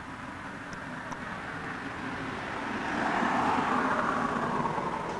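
A motor vehicle passing by: its steady noise swells to a peak about three seconds in and then begins to fade.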